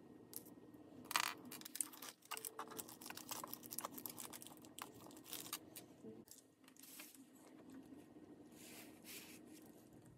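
Small clear resealable plastic bag crinkling and rustling as it is handled, with scattered light clicks.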